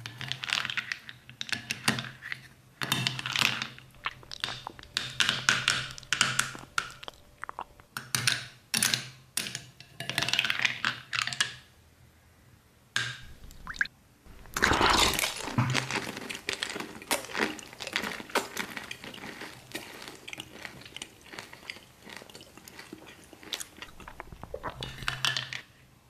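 Close-miked chewing and crunching of candy-coated chocolates (M&M's) in a chocolate sauce. It comes in several bursts of crackly crunches with short pauses between.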